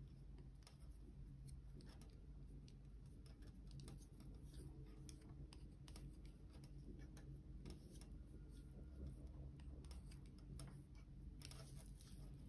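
Faint, irregular clicks of 7 mm wooden circular knitting needles tapping together as stitches are cast on with the cable cast-on, over a low steady hum.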